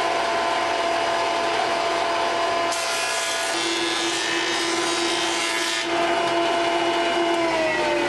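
Benchtop jointer running with a steady motor whine. From about three to six seconds in, a red cedar board is fed edge-down over the cutterhead, adding the hiss of the knives shaving the wood. Near the end the motor is switched off and winds down with a falling pitch.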